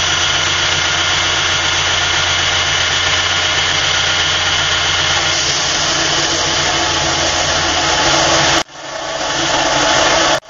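Burr King belt grinder running steadily while a steel knife blade, held in a tapering jig, is ground against the belt on the platen; the high grinding hiss grows stronger about halfway through. The sound cuts out abruptly once near the end and swells back.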